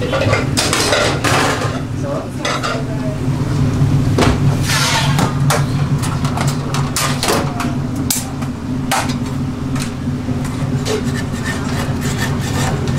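Busy commercial kitchen: a steady low hum of extractor fans and gas burners under repeated clinks and knocks of metal pans, trays and utensils.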